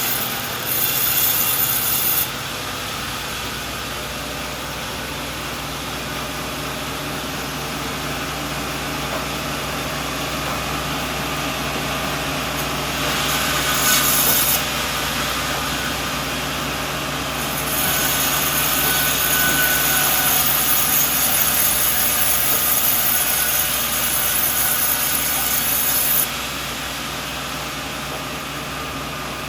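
Sawmill blade cutting a coconut log, the machine running steadily throughout. The sound grows louder and hissier in several long stretches as the blade works through the wood.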